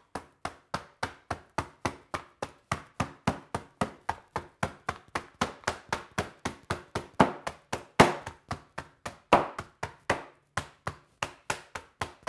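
Meat mallet pounding cucumbers sealed in a silicone reusable bag on a cutting board, crushing them to release their juices. It makes a steady run of thuds, about three to four a second, with a couple of harder blows past the middle.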